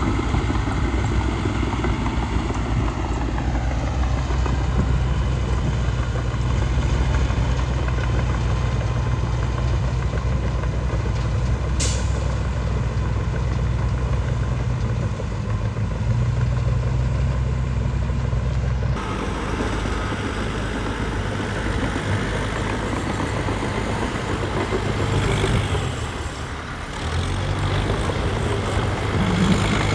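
Heavy diesel engines of earthmoving machinery running steadily, with one sharp click about twelve seconds in. About two-thirds of the way through, the engine sound changes abruptly, and it dips briefly near the end.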